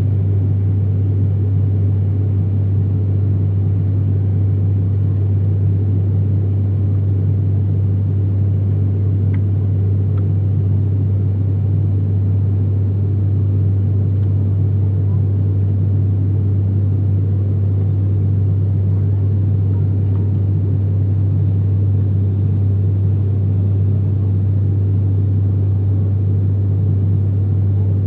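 Turboprop airliner in cruise heard from inside the cabin: the steady drone of the propeller and engine, with a strong, unchanging deep hum.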